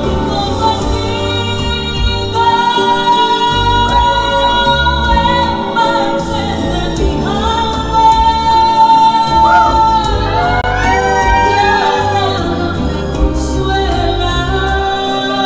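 A woman singing into a microphone over a backing track, holding long notes and sliding through runs around the middle.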